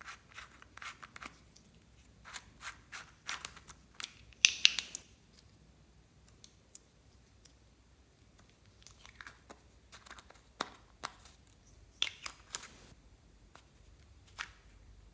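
Small plastic toy contact-lens case being handled: caps twisted, pulled off and clicked, making sharp plastic clicks and brief scraping rasps, with the loudest cluster about four and a half seconds in.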